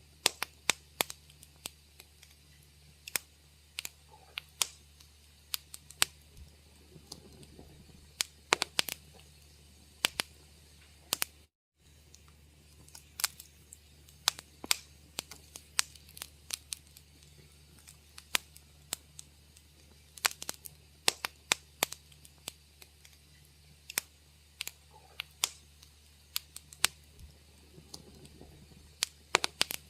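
Wood fire crackling in a fireplace: irregular sharp pops and snaps, several a second at times, over a low steady rumble. The sound cuts out for a split second about a third of the way in.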